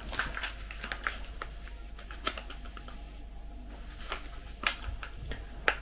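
Plastic stand-up food pouch crinkling and crackling as it is handled, in scattered sharp clicks, one louder crackle a little before five seconds in.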